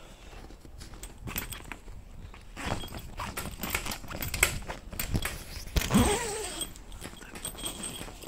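Rustling and clicking of the karakat's camouflage fabric tent being handled at close range, with a short whine falling in pitch about six seconds in.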